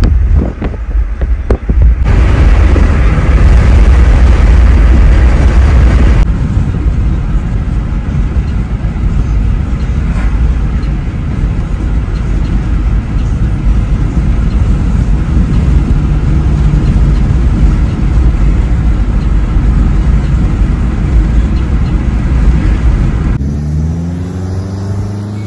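Steady low rumble of a car driving on the road, heard from inside the cabin. There are a few knocks in the first couple of seconds, and a rising tone comes in near the end.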